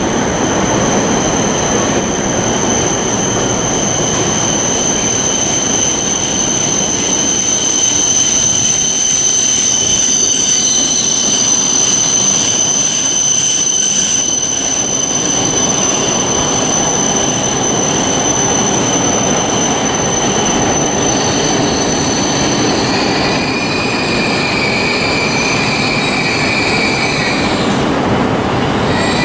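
Steel train wheels squealing on the rails over the rumble of a train running. A single high, steady squeal holds for most of the time, then about three-quarters of the way through it changes to a lower pair of squealing tones that stop shortly before the end.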